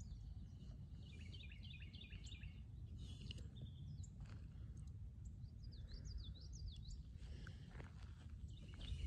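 Songbirds singing short, warbling phrases a few times over a steady low rumble.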